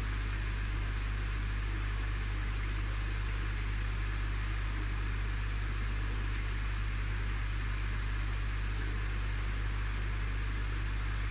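Steady low mechanical hum with an even hiss over it, the background hum of equipment.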